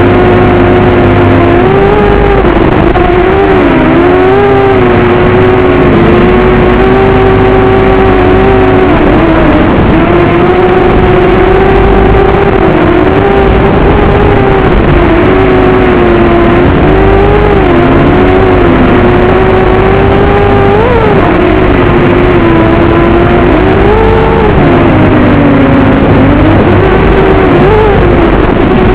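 FPV racing quadcopter's motors whining as it flies laps, the pitch constantly swooping up and down with throttle through the turns, over a rough low rumble.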